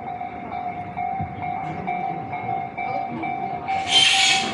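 Japanese railway level-crossing alarm ringing in a steady, even repeat of about two to three dings a second, while a train runs by. Near the end comes a louder, brief hissing burst.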